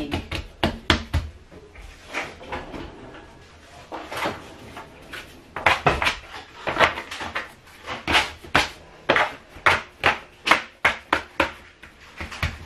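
Plastic dough scraper cutting pizza dough into portions, knocking against the countertop in irregular taps. It is sparse at first and comes thicker from about halfway in.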